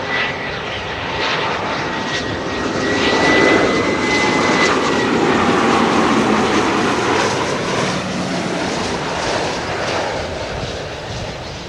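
Gulfstream G550 business jet on landing approach passing close by, its two Rolls-Royce BR710 turbofans running at approach power. The jet noise and a high engine whine build to loudest in the middle and then fade, the whine dropping in pitch as the aircraft goes past.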